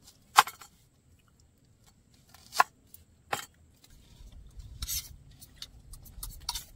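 Knife cutting a red onion on a plastic cutting board: three sharp cuts in the first few seconds. Then soft scraping and rustling of food being mixed by hand in a steel plate.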